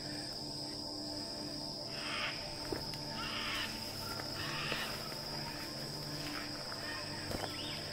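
Steady high-pitched insect drone from crickets or cicadas, with a few soft rustles of footsteps brushing through long grass.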